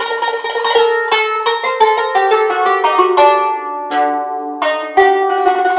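Instrumental music on a plucked string instrument: a quick run of melody notes, each struck with a sharp attack.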